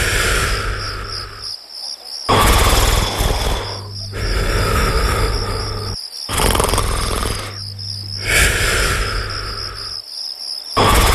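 Slow snoring, a long drawn breath about every four seconds, over a steady chorus of crickets chirping.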